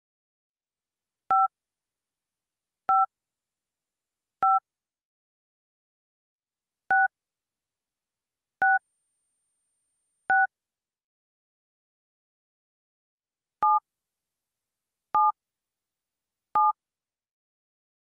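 Touch-tone telephone keypad (DTMF) beeps: three different keys in turn, each pressed three times. Each beep is a short two-pitch tone, about one and a half seconds apart, with a longer gap between keys.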